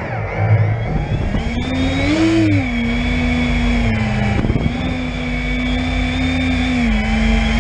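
Brushless motors and propellers of a 12S X-class FPV quadcopter, heard from its onboard camera: a steady multi-tone hum whose pitch rises briefly about two seconds in, then holds with small dips, over a low rumble of wind on the microphone.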